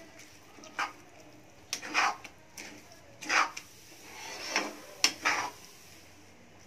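A metal spatula stirring and scraping scrambled egg bhurji in a kadhai, giving irregular scrapes and clacks against the pan's sides. The strokes are uneven, about eight of them, and thin out near the end.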